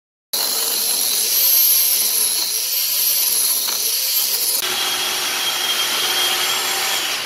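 Angle grinder fitted with a cylindrical carving cutter boring into a wooden block, its high whine rising and falling with the load. A little after halfway it gives way to a power saw cutting through a log, a steadier whine.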